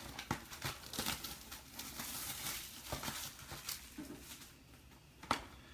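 Crinkling and tearing of plastic wrapping as trading-card boxes are unwrapped, with small clicks of cardboard being handled. The crinkling fades about four seconds in, and a single sharper click comes near the end.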